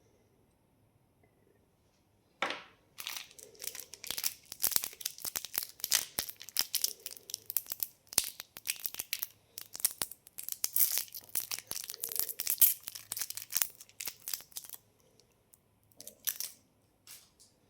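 Candy packaging being torn open and crinkled, a dense irregular crackle of many sharp snaps that starts a couple of seconds in and dies away near the end.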